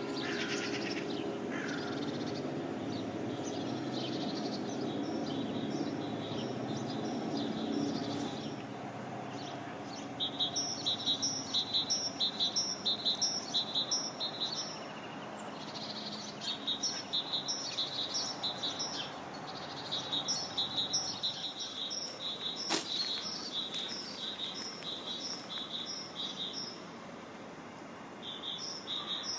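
Nature-sounds soundtrack: high, rhythmic chirping in repeated runs from about ten seconds in, over a soft steady background hiss.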